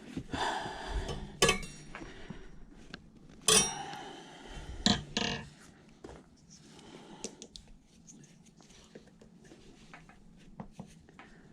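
Metal tire spoons clinking and scraping against an e-bike's rear wheel rim as they pry at a tight tire bead. Three sharp clinks stand out, about one and a half, three and a half and five seconds in, with quieter scraping and small clicks in between and after.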